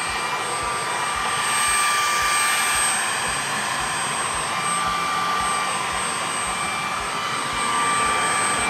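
Cordless Shark ION DuoClean stick vacuum running steadily, a rushing noise with a high whine, vacuuming dust and debris out of the inside of a pellet stove.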